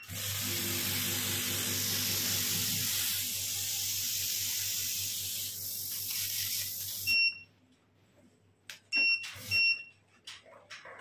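Hydrafacial machine's polymer atomizing pen spraying mist: a steady hiss of air with a low hum beneath, lasting about seven seconds. The machine gives a short electronic beep as the spray stops, then two more beeps a couple of seconds later.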